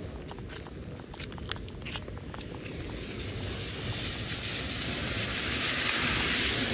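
A minivan driving past on a rain-soaked road, the hiss of its tyres through the water swelling over a few seconds to loudest near the end. A few light taps in the first two seconds.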